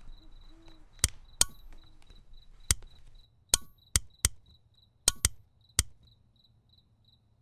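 A wall light switch clicked on and off over and over: nine sharp clicks in about five seconds, mostly in quick pairs. Crickets chirp steadily behind it.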